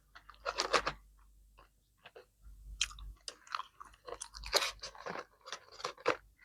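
A person chewing sushi and seaweed salad: a string of crunchy chews and bites, one cluster about half a second in, then a busier run through the second half.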